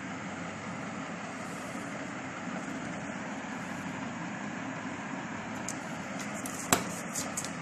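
Steady rumbling background noise. Near the end come a few light clicks and one sharp tap, about two-thirds of the way through, as scissors and small rubber and plastic parts are handled on a table.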